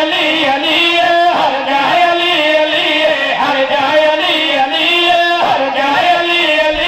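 A group of men singing a devotional chant together into microphones, in long held, wavering notes.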